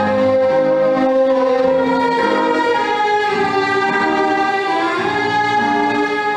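Film score music: a violin melody in long held notes over an orchestral string accompaniment.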